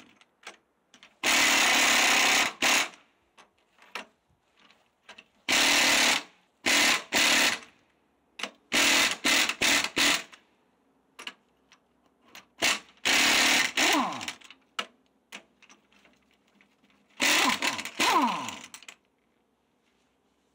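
Impact wrench hammering in repeated short bursts of about a second each, loosening the U-bolt nuts that hold a rear axle; after the bursts near the middle and near the end its motor whines down in pitch.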